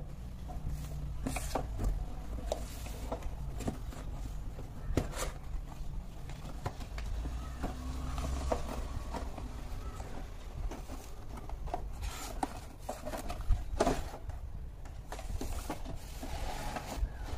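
Cardboard kit box being opened by hand, its lid lifted off and the contents handled: scattered light rustles, scrapes and taps, with one sharper knock about two-thirds of the way through.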